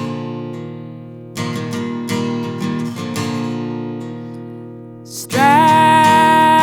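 Recorded acoustic folk song: strummed acoustic guitar chords, each left to ring and fade away. About five seconds in, a loud, held high note comes in over the guitar.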